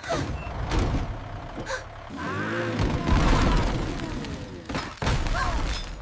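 Cartoon sound effects of a heavy truck's engine rumbling as it backs up, then a loud thud about five seconds in as a brick wall is struck and starts to collapse.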